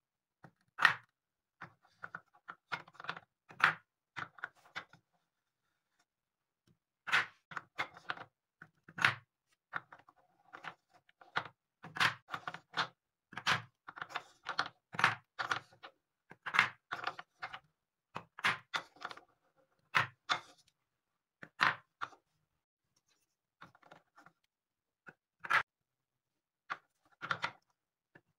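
Wooden balls knocking and clacking against a wooden scoop, a wooden bowl and wooden cups as they are scooped up one by one and dropped into the cups. A long series of separate sharp knocks in small clusters, with a few short pauses.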